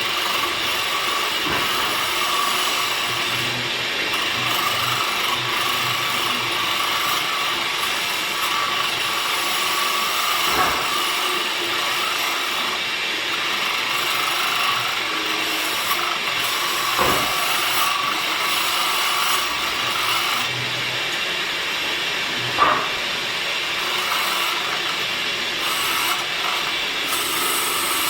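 Woodworking machine running steadily as it works a piece of teak, with three sharp knocks along the way.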